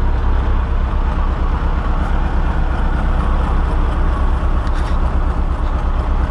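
Late-1990s John Deere excavator's diesel engine idling steadily, a low even rumble.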